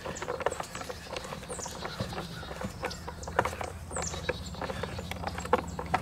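Light clicks and taps of hands handling the plastic housing of a Poulan Pro handheld leaf blower, over a steady low hum, with a few short high chirps.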